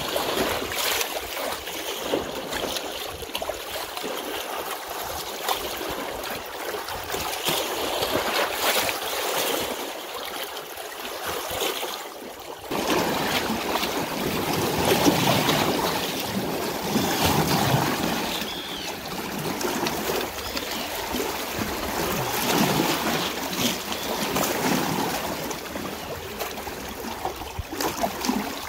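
Water flowing and splashing steadily as a continuous rushing hiss. A little before halfway it abruptly becomes fuller and deeper, and stays so.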